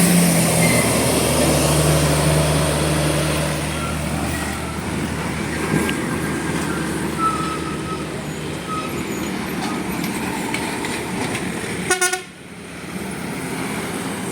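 Bus noise with a musical telolet horn sounding a run of short notes at different pitches. There is a brief sharp sound near the end, then the level drops.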